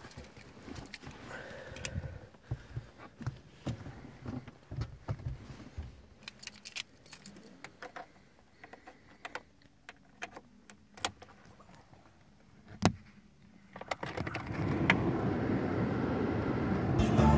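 Keys jangling and clicking at the ignition of a 1999 Renault Mégane, with a sharp click about thirteen seconds in. About fourteen seconds in, its 1.9 dCi four-cylinder turbodiesel starts and keeps running steadily: a cold start at −2 °C.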